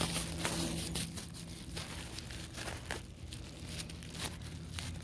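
Plastic dog-waste bag crinkling and rustling in the hand in short irregular bursts as dog poop is picked up in it.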